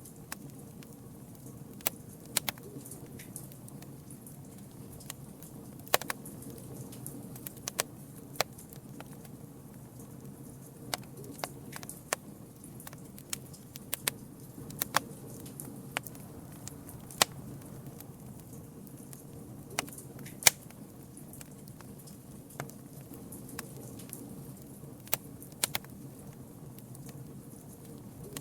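Campfire burning: a steady low rumble of flames under irregular sharp crackles and pops, a few of them much louder than the rest.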